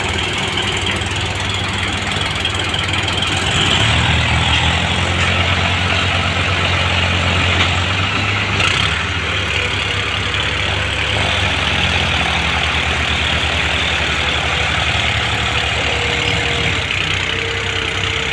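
New Holland tractor's diesel engine running hard under heavy load, hauling a trailer piled with sugarcane. The engine gets louder about four seconds in and eases back to a steady pull about halfway through.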